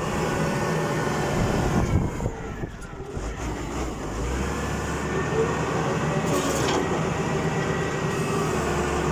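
Forklift's Isuzu 6BG1 inline-six diesel engine running steadily after repair, no longer misfiring. It drops briefly quieter about two seconds in, then runs on evenly.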